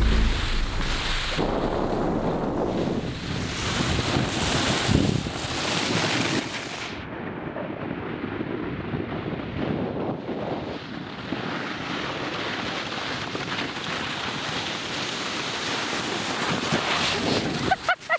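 Steady rushing wind noise. About seven seconds in it turns suddenly muffled, then slowly brightens again.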